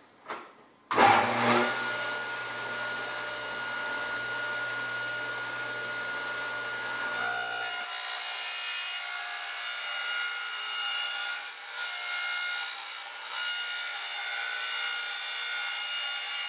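Table saw switched on about a second in and running with a steady whine. From about seven seconds in its blade rips a strip from a sheet of 5052 aluminum through a zero-clearance wooden insert, a shrill, many-toned metal-cutting screech that carries on with brief dips.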